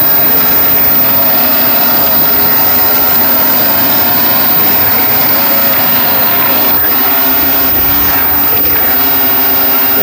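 A motor running steadily, its pitch dipping and rising once near the end.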